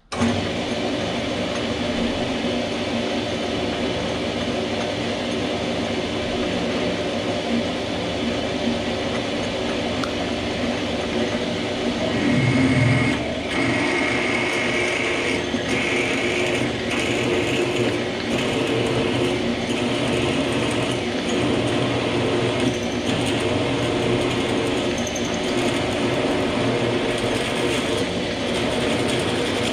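Small metal lathe switched on and running steadily, its motor and gear train whirring, while a twist drill in the tailstock chuck is fed into the spinning workpiece. About twelve seconds in there is a louder stretch of a second or so with a high whine.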